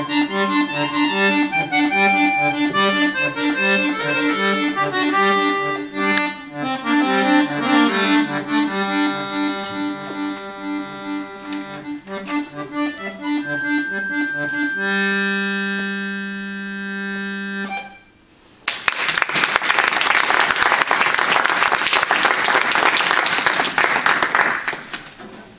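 Chromatic button accordion playing a quick run of notes that settles into sustained chords and ends on a long held chord, followed by about six seconds of audience applause.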